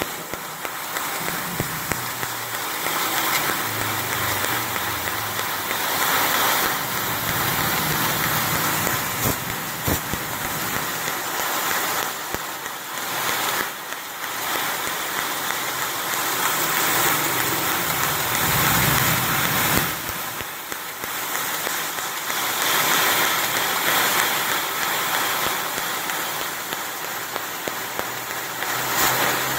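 1 kW fiber laser tube cutter cutting a metal profile: a steady hiss of assist gas from the cutting head, with a low hum underneath. It swells and dips as the cut goes on.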